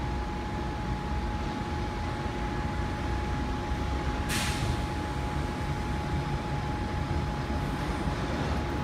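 Class 399 Stadler Citylink tram-train standing with a steady hum and low rumble, with a short hiss about four seconds in.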